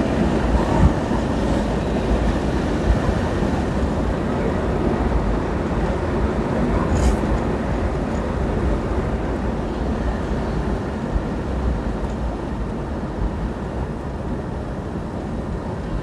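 Steady in-cabin noise of a 1964 Ford Thunderbird convertible cruising at about 70 mph: a low, even rumble of road, wind and engine.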